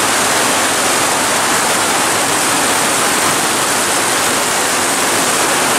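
Heavy tropical downpour: rain falling hard on trees and ground, a loud, steady hiss.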